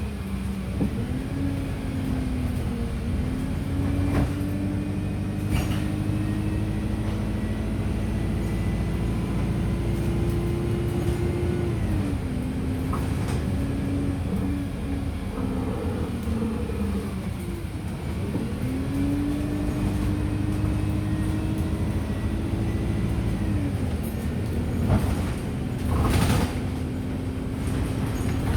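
Wright StreetLite DF single-deck bus heard from on board, with its engine and road noise. The engine note rises slowly as the bus gathers speed and drops back about twelve seconds in. It dips lower a few seconds later, rises again, and drops once more a few seconds before the end. Sharp knocks and rattles come through now and then, loudest near the end.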